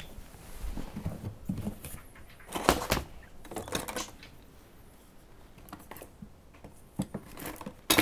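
Scattered clatter, clicks and knocks of materials being handled and set down, with the loudest knocks about three seconds in and at the very end.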